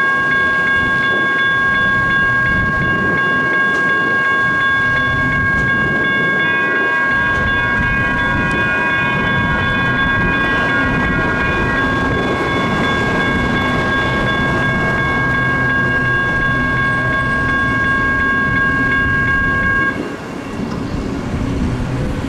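Railroad crossing warning bell ringing steadily over the rumble of a light rail train moving on the tracks, with a second ringing tone joining for a few seconds midway. The bell stops abruptly near the end as the crossing signal shuts off.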